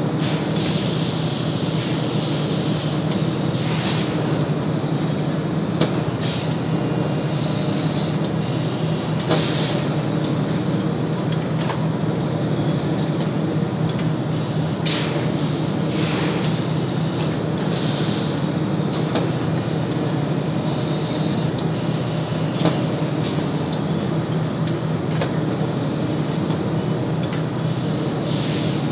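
Impeller bag-filling line running with a steady low machinery drone, overlaid by repeated short hisses of compressed air from the pneumatic actuators at irregular intervals as an ABB robot places empty bags on the filling spouts.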